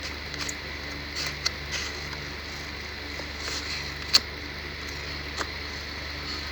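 Steady low hum with a few short, sharp clicks, the loudest about one and a half and four seconds in.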